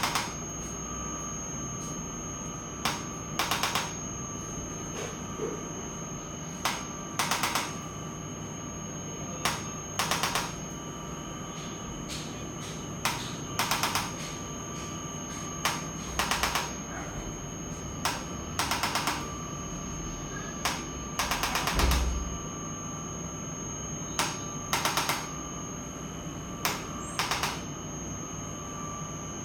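Chiropractic spinal adjustment gun firing on the spine in short bursts of rapid clicks, one burst every second or two. About two-thirds of the way through, one burst is louder, with a low thud.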